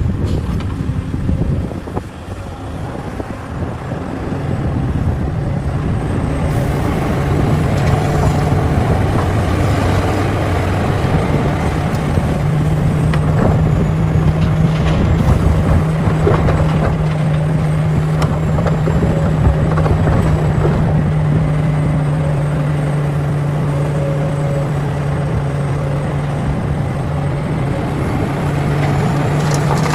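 Heavy diesel mining machinery running steadily under load, with a low engine drone that rises about four seconds in and then holds.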